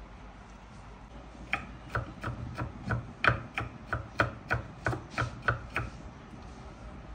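Kitchen knife chopping garlic on a wooden cutting board: a run of quick, sharp knocks, about three a second, starting about a second and a half in.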